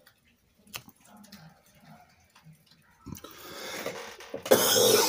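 A few faint handling clicks, then a drawn-in breath building for about a second and a half and a loud sneeze near the end.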